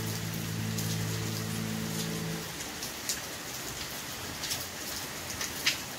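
Steady rain hiss with a few sharper individual drop hits scattered through it. A soft held chord of background music fades out about two seconds in.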